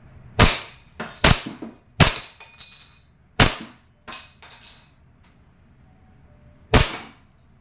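Double Bell 1911 MEU gas-powered airsoft pistol firing single shots, five sharp cracks with a long pause before the last, mixed with the ringing clinks of BBs striking a metal spinner target.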